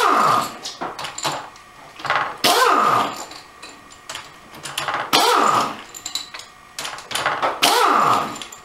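Pneumatic impact wrench undoing the 12 mm top-cover bolts of an AX5 manual transmission: four short bursts about two and a half seconds apart, each falling in pitch as it winds down, with light clicks of the socket and bolts between.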